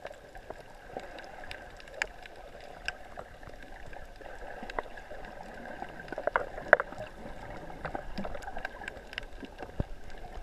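Underwater ambience picked up by a camera below the surface: a steady low hum with many scattered sharp clicks and snaps, the loudest one about two-thirds of the way through.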